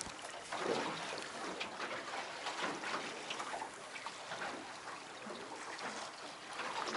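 Water lapping and splashing against a small boat's hull, an uneven wash of noise with many short slaps.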